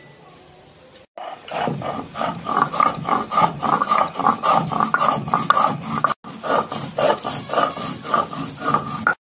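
Poppy seeds being ground on a Bengali sil-nora, a pitted stone slab with a stone muller rubbed back and forth in rasping strokes, about three a second. The scraping starts about a second in and breaks off for an instant near the middle.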